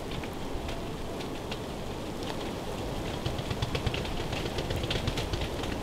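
Steady rush of wind in a snowstorm, with many light ticks of snow striking the ground blind.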